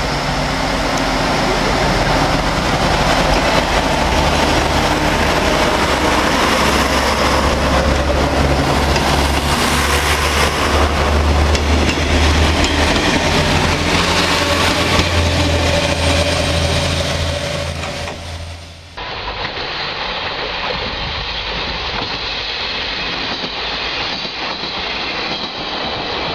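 Diesel railcar running: a deep steady engine hum under rushing rail noise. About 19 seconds in it cuts abruptly to a thinner, duller train sound without the deep hum.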